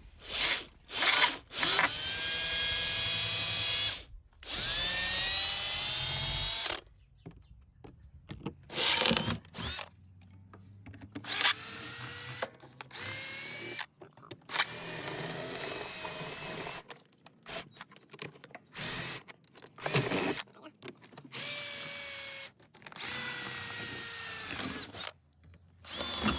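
Cordless drill running in a dozen or so short bursts of one to two seconds, its motor whine rising in pitch as each burst spins up, as it backs screws out to loosen the old charger.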